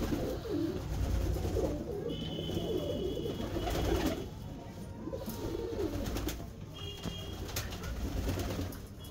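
Satinette fancy pigeons cooing in a loft, low wavering coos repeating and overlapping.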